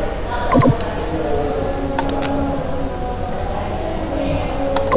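A few sharp computer clicks, two close together about half a second in, two more around two seconds, and one near the end, over steady background noise.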